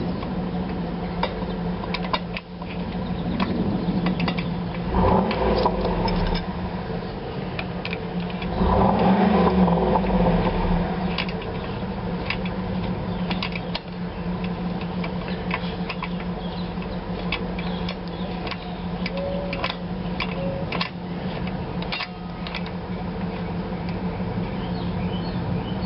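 Small metal clicks and clinks of brake pads, pins and hand tools being handled while new pads are lined up and fitted into a motorcycle's front brake caliper, over a steady low hum. Two louder stretches of rubbing and handling come about five seconds in and again around nine seconds.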